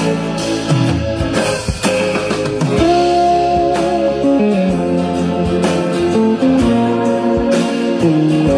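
Guitar music with bass notes, played back through a single-ended tube amplifier and Klipsch loudspeakers.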